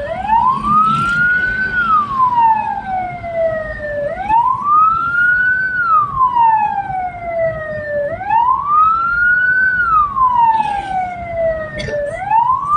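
Hearse's electronic wail siren, rising and falling in pitch about every four seconds, over a low rumble.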